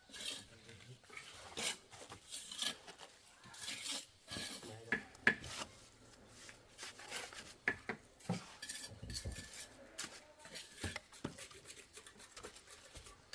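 Irregular clinks and scrapes of hard objects being handled, a few sharper knocks among them.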